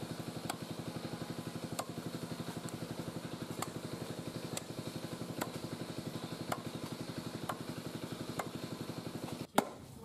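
A meat cleaver chopping lamb on a wooden log, a sharp chop about once a second, over the steady fast putter of an idling engine.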